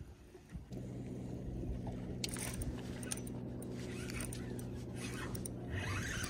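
A boat motor starts a steady low hum under a second in. From about two seconds in there are scattered scrapes and splashy clicks, which get busier near the end as a hybrid striped bass is reeled up to the boat.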